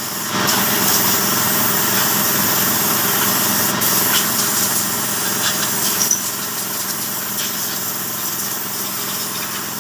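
A small motor running steadily with a hissing edge, getting louder about half a second in and easing off a little over the last few seconds.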